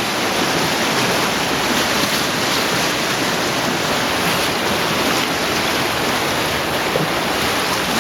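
Cave stream in near-flood, fast water rushing and splashing close by, steady and loud.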